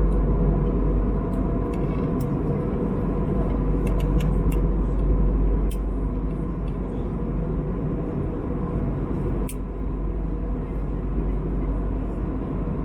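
Steady cabin noise of an Airbus A321neo in flight: a low rushing of engines and airflow, with a few faint clicks, easing slightly in level about halfway through.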